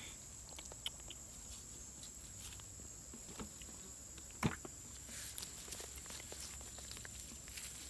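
Faint scattered rustles and ticks of hands sorting small fish and shrimp out of a fine nylon fishing net on dry ground, with one sharper click about four and a half seconds in. A steady faint high tone runs underneath.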